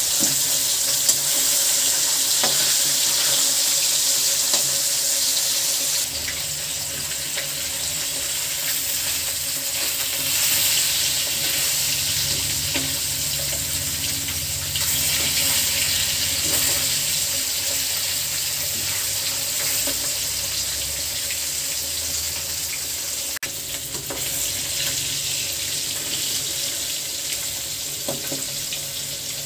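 Fish pieces shallow-frying in oil and masala in a wok, a steady sizzling hiss with a few faint ticks.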